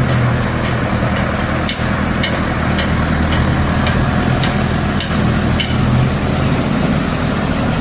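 Concrete mixer truck's diesel engine running steadily, with a light regular tick about twice a second.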